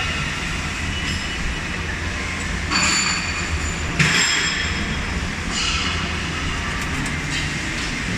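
Nakamura WT-250MMY twin-turret CNC lathe running: a steady mechanical hum with three brief surges of high whine, about three, four and six seconds in, and a sharp clunk at about four seconds.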